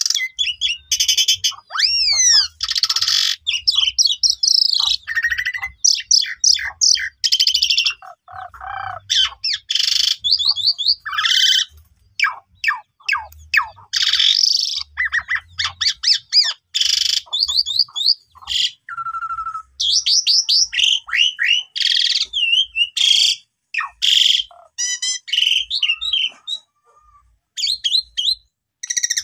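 Asian pied starling singing loudly in a long run of varied phrases: quick rising and falling whistles, trills and harsh, squawky notes. The phrases come in bursts with short gaps between them. This is a starling in full, excited song.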